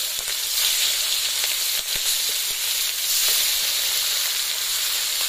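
Pieces of hilsa fish frying in hot oil in a wok: a steady sizzle with fine crackling.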